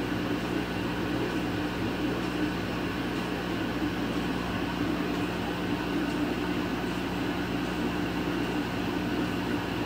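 Laser cutter running as it cuts a cherry wood board: a steady mechanical hum and whir at an even level, with no distinct clicks or changes.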